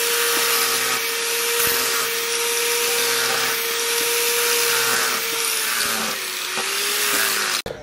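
Angle grinder with an abrasive disc grinding a steel axe head forged from leaf spring, a steady high whine over a harsh grinding hiss. The motor's pitch sags about two-thirds through as the blade is pressed harder into the disc, and the sound cuts off abruptly near the end.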